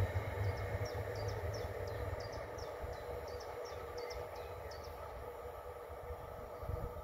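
Electric multiple-unit passenger train running away along the track, its low rumble fading steadily into the distance. A bird chirps repeatedly, short high falling notes, through the first five seconds.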